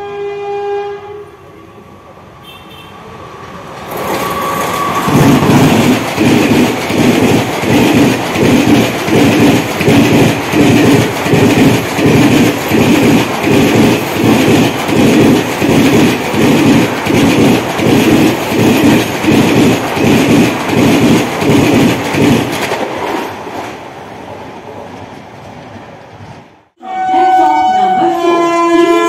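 Electric passenger train horn sounding briefly, then a WAP4-hauled express rushing past at speed, its coach wheels clattering over rail joints in a steady rhythm a little under two beats a second before fading away. Near the end, after a cut, another electric locomotive's horn sounds a chord of several tones.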